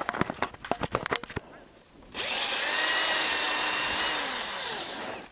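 Cordless drill-driver with a socket spinning out a loosened bolt of an automatic transmission oil pan. A few light clicks and taps come first, then the drill runs steadily for about three seconds, its whine dropping in pitch as it slows near the end.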